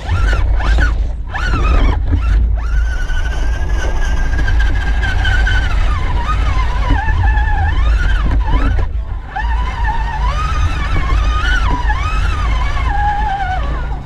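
Electric motor and gear whine of a radio-controlled rock crawler, rising and falling in pitch with the throttle as it crawls over rock, over a heavy low rumble.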